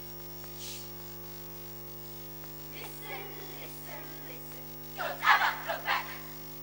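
Steady electrical mains hum. A faint voice about three seconds in, then, about five seconds in, a choral speaking group of schoolgirls calls out a few loud syllables in unison.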